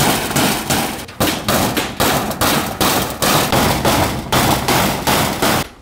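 Hammer nailing a corrugated galvanized iron (tin) wall sheet: a steady run of sharp blows, two to three a second, each with a short ring, with a brief pause about a second in and a stop just before the end.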